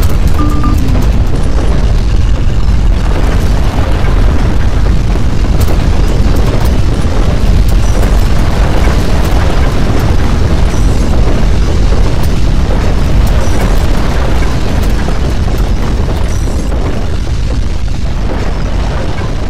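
Loud, deep earthquake rumble with scattered cracks and rattles throughout, the sound of strong ground shaking. It eases off over the last few seconds.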